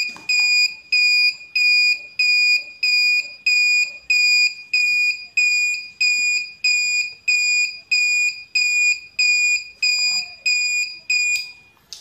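Buzzer driven by a 555 timer circuit, giving short high beeps about twice a second, an on-off ticking-bomb timer sound. The beeping stops abruptly near the end.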